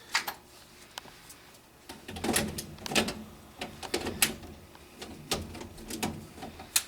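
Irregular clicks and knocks of handling work at an air handler, about six sharp ones spread through, with a low rustle in between.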